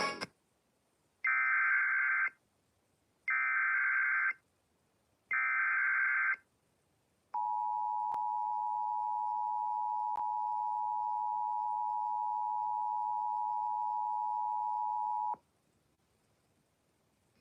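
Emergency Alert System signal for a severe thunderstorm warning. First come three one-second bursts of SAME header data tones, about a second apart. Then the two-tone attention signal, 853 and 960 Hz sounded together, holds steady for about eight seconds and cuts off.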